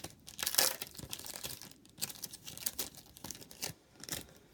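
Foil trading-card pack wrapper being torn open and crinkled by hand, in irregular rustling bursts, loudest about half a second in.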